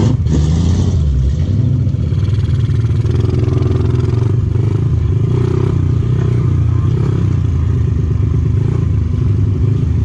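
Pit bike's small single-cylinder four-stroke engine running steadily as the bike rides along, heard close up from a camera mounted on its handlebars.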